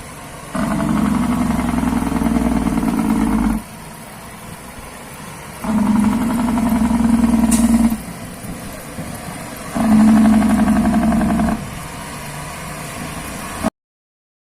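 Semi-truck diesel engine revved three times, each rev held for two to three seconds, settling back to idle in between; the sound cuts off suddenly near the end.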